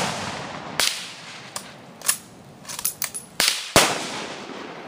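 Gunshots from several guns firing on a shooting range: about seven sharp reports at uneven intervals, each with a short echoing tail. The loudest come about a second in and near the four-second mark, with fainter shots between them.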